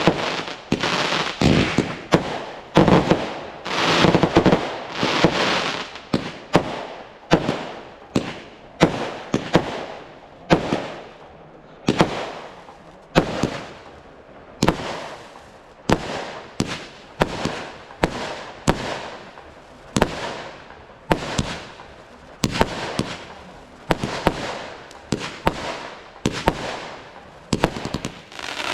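Fireworks display: aerial shells bursting in a rapid run of loud bangs, each trailing off in an echo. The bangs come thick and almost continuous in the first six seconds, then settle to about one or two a second.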